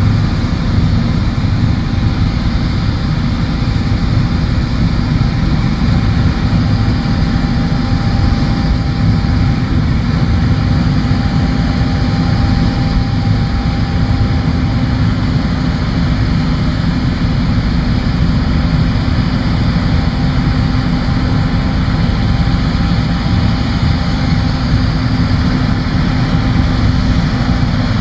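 Combine harvester running steadily at work, a heavy low engine drone with a constant hum, unchanging throughout.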